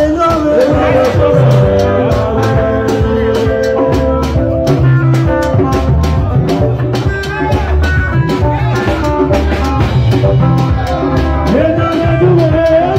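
Live Esan (Edo, Nigeria) dance-band music played loud, with a steady drum beat under a man singing into a microphone.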